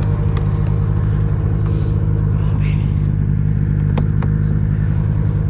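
A vehicle engine idling steadily with a low, even hum. A sharp click about four seconds in.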